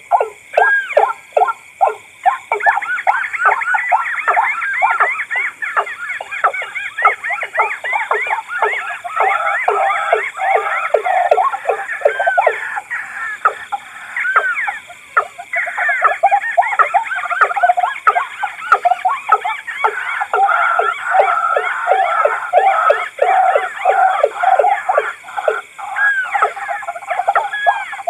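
Combined recorded calls of rails: white-breasted waterhen, watercock and crake calling together, a loud, continuous run of repeated rising-and-falling notes about three a second. The notes come as one series at first, then from about two seconds in several callers overlap densely.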